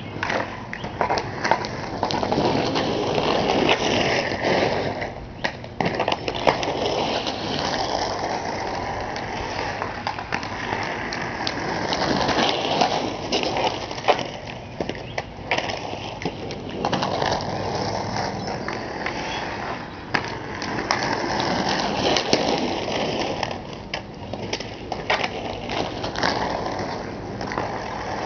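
Inline skate wheels rolling and scraping over an asphalt driveway in swelling passes, with frequent sharp clicks of a hockey stick blade tapping a street hockey ball.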